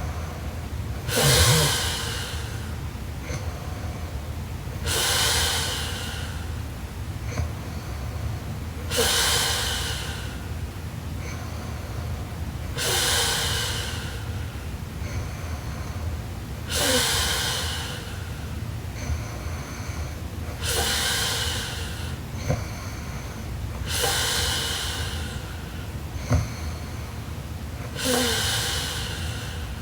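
A sleeping young woman snoring: a rasping breath with a short nasal snort about every four seconds, eight in all, over a steady low hum. Two sharp clicks come in the last third.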